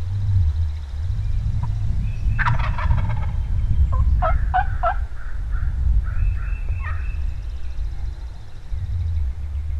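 Wild turkey gobbling: a rattling gobble about two and a half seconds in, followed by several shorter calls. A steady low rumble runs underneath.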